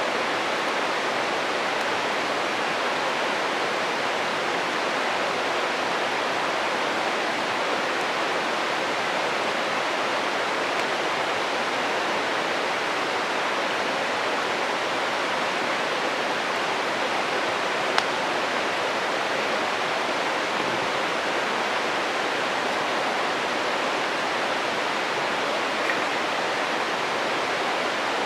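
Steady rushing of a stream, with a single sharp crack from the campfire about two-thirds of the way through and a fainter one near the end.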